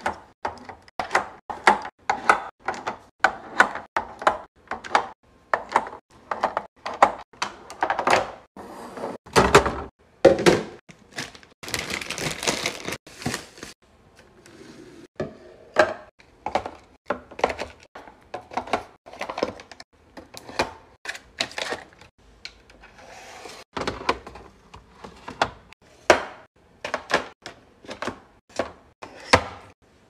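Quick light clacks and taps of eggs and yogurt cups being set down into clear plastic fridge organizer trays and bins, several a second. A couple of seconds of rustling comes near the middle.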